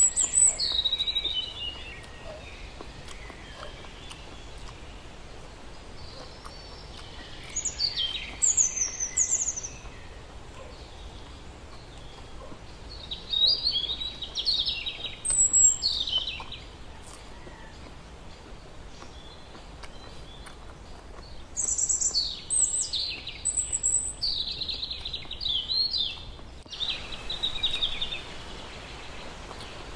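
Birds calling: bouts of high, quick chirps that sweep down in pitch, heard four times over a steady background hiss.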